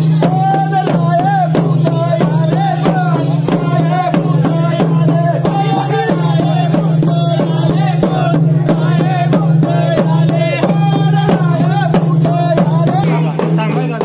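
Festival folk music: fast, dense drumming on hand drums with rattles, under a wavering melody line and a steady low drone.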